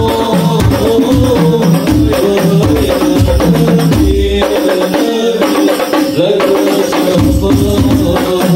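Live hadroh: a lead singer sings an Islamic devotional melody over hand-played frame drums (rebana), a darbuka and a bass drum struck with a mallet, all amplified through microphones and a PA sound system. The low bass-drum beats drop out for about three seconds from around four seconds in, then come back.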